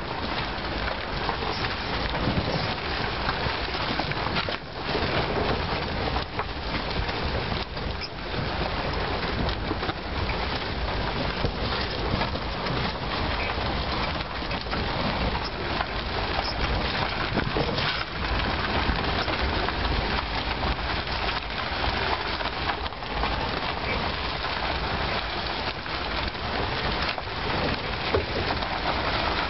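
Continuous road noise from beneath a towed caravan trailer: tyres rolling over a rough dirt road with a dense crackle of gravel and grit, and the leaf-spring suspension working over the bumps.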